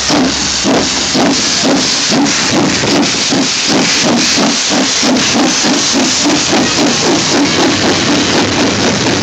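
JA-class 4-8-2 steam locomotive pulling away, its exhaust chuffing steadily at about three beats a second over a loud continuous hiss of steam from around the cylinders.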